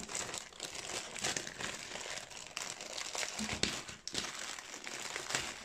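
Plastic shipping mailer bag being torn open and crumpled by hands: a continuous crinkling rustle dotted with sharp crackles, which stops abruptly at the end.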